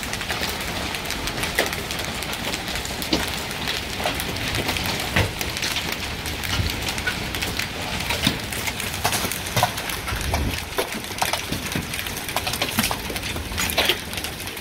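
Hailstorm with tennis-ball-sized hailstones: a steady hiss of falling rain and hail, broken by many irregular sharp knocks as large hailstones strike the ground.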